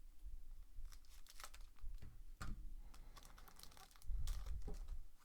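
Trading-card packs and their cardboard blaster box being handled: irregular crinkling, clicking and tearing of the wrappers and card stock, with a few low thumps near the end.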